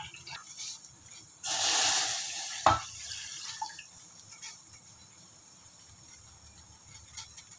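Water pouring into a container in a loud rush for just over a second, cut off by a sharp knock, then a faint hiss with a few small clicks.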